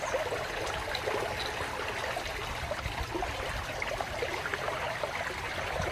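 Fast-flowing stream, water rushing steadily.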